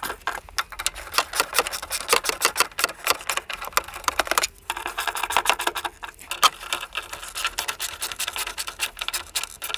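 Hand ratcheting driver clicking in quick, irregular runs as the bolts of the fuel pump's metal retaining plate are tightened by hand, with short pauses between bolts.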